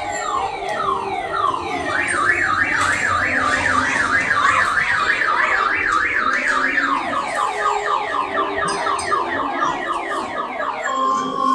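Electronic toy sound effects from the kiddie ride boats: overlapping falling laser-like sweeps, several a second, with a fast warbling siren taking over for a few seconds in the middle.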